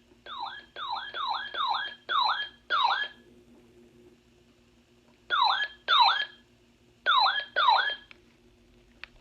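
RadioShack 12-991 weather radio sounding its alert test: a loud electronic siren chirp, each one sweeping down and back up in pitch, repeated in quick runs with short pauses (about six in a row, then two, then two more).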